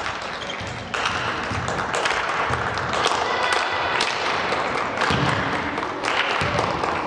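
Volleyball being played in a sports hall: dull thuds and taps of the ball being hit, over a steady din of the crowd and players. The din gets louder about a second in.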